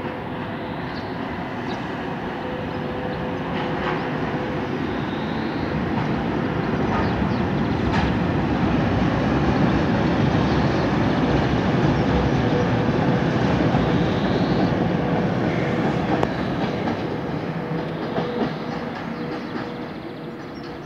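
VL80 electric locomotive hauling a track-measuring car across a steel truss railway bridge. The wheels clatter on the rails, growing louder to a peak about halfway through and then fading. A steady hum runs underneath.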